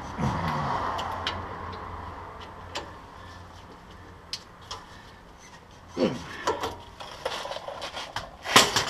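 Scattered metallic clicks and knocks of a socket ratchet and hand tools as the 18 mm brake caliper bolts are snugged up, with a louder clank near the end.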